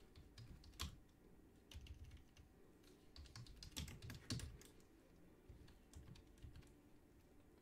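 Faint typing on a computer keyboard: irregular, scattered keystrokes.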